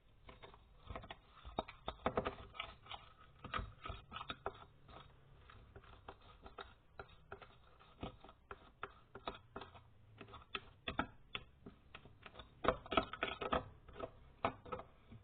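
Freshly made sticky slime being pulled and peeled off, a long irregular run of small wet clicks and pops, thickest about two seconds in and again near the end.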